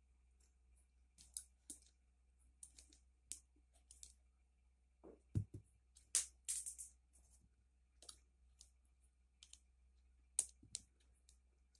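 Small pebbles clicking and tapping against one another as they are handled and set on a glued stone stack, in scattered single clicks, with one duller knock about five seconds in.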